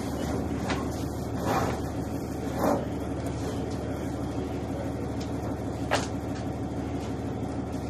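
A vehicle engine idling steadily, with a few short knocks and scuffs on top, the sharpest one about six seconds in.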